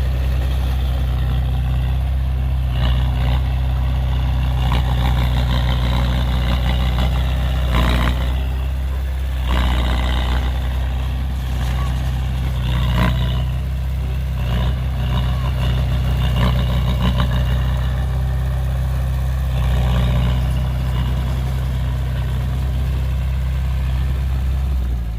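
Heavy diesel earthmoving machinery running steadily, with bursts of clatter every few seconds.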